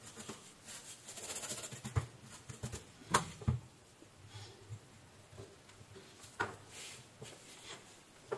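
A small bristle brush scrubbing lightly over a desoldered voltage regulator, with a few sharp clicks and taps of metal tweezers and the part on a stone workbench.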